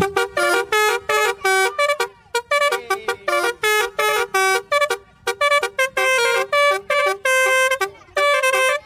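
Basuri telolet bus horn playing a quick tune of short, separate toots at changing pitches.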